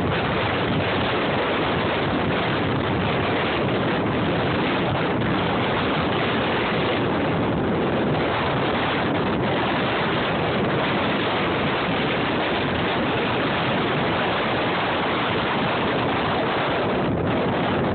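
Strong storm wind rushing over the phone's microphone during a tornado, a steady loud rush of noise with no letup.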